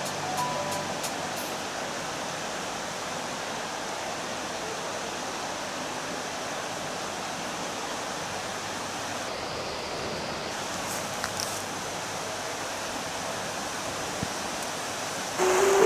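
River water rushing steadily, with music fading out just after the start and coming back in loudly near the end.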